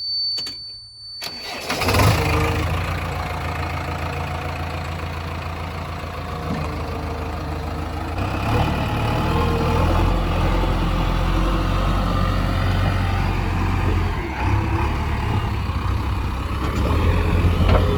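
A steady thin high tone for about the first second, then a diesel engine starts about two seconds in and runs steadily with a low rumble, growing louder about eight seconds in.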